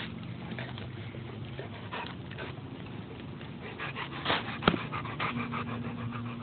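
A dog panting in quick, even breaths, with one sharp click about four and a half seconds in.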